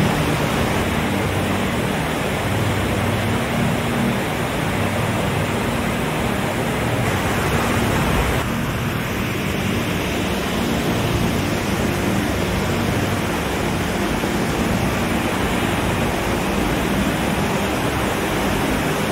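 Tiered waterfall pouring steadily: a dense, even rush of falling water with no breaks.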